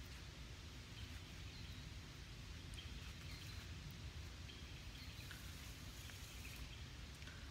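Quiet outdoor ambience: a steady low rumble of background noise with a few faint, short high chirps from birds scattered through it.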